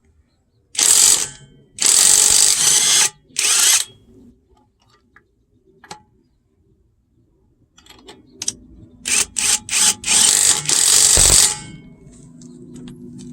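AOBEN 21V cordless impact wrench run in short pulls of the trigger: three bursts of about a second each, then a quicker string of short bursts ending in a longer one. The owner says the wrench is broken and no longer works.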